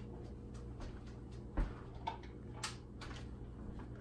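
A few faint, short clicks and knocks of an Instant Pot and its trivet of egg-bite molds being handled, the clearest about one and a half seconds in, over a low steady hum.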